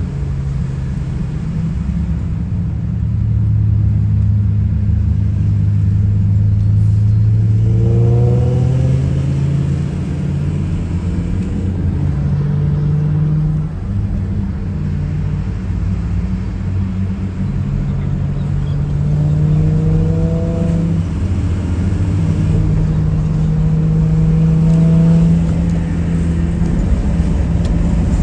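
Car engine running steadily while driving, with its note rising a few times as it accelerates.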